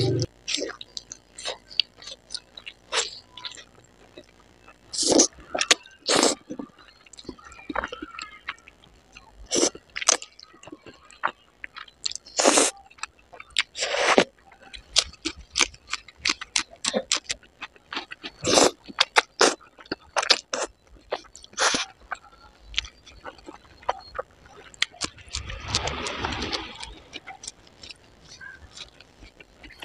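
A person eating fried egg and noodles: chewing with many short, wet mouth clicks and smacks, and a longer, noisier stretch of chewing a little before the end.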